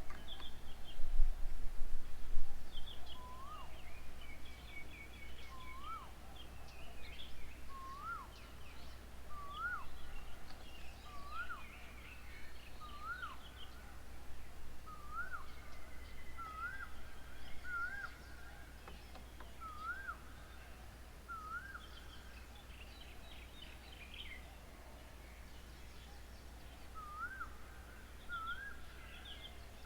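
Birds calling: one bird repeats a rising whistled note about every second and a half, the notes climbing slightly in pitch through the series, which pauses for a few seconds near the end and then starts again. Smaller birds chatter and chirp higher up throughout.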